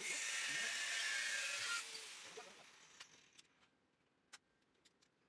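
Bench grinder grinding a small steel plate: an even, hissing grind for about two seconds, then the wheel winds down. A few light metal clicks follow.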